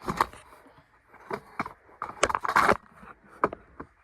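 Cardboard box being handled and opened: irregular crunching and scraping of cardboard and packing, loudest about two and a half seconds in.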